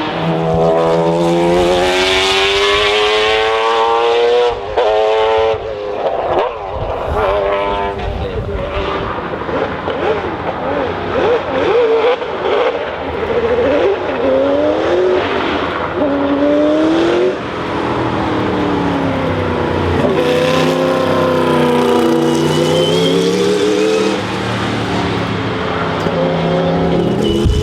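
Le Mans racing-car engines running at high revs, the pitch climbing and then falling back over and over as they accelerate and shift gears.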